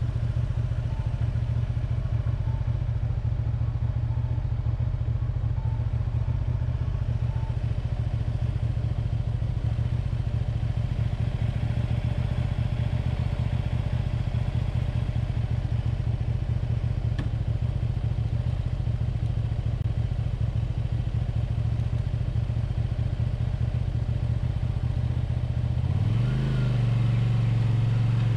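1985 Honda VT250F Integra's 250 cc V-twin engine running steadily, its revs rising near the end as it accelerates.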